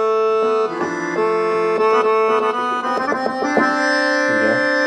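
Yamaha PSR-S670 keyboard's accordion voice playing held chords that change every second or so. The notes ring on long because the keyboard's Left Hold function is switched on.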